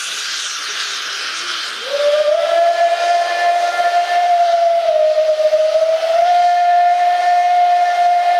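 Steam whistle of the ČSD class 354.1 tank locomotive 354.1217 sounding one long blast that starts about two seconds in. Its pitch sags slightly in the middle and then recovers, over the hiss of escaping steam.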